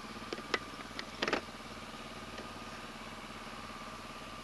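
Motorcycle engine running steadily at low revs, with a few short clicks in the first second and a half.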